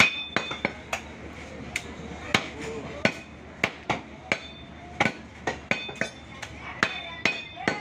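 Butcher's knife chopping beef on a wooden stump block: sharp, uneven chops about two a second, some with a short metallic ring.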